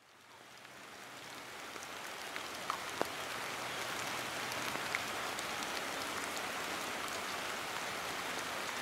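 Steady rain falling on a surface, fading in over the first few seconds, with a few distinct single drops ticking out, around three seconds in and again near five seconds.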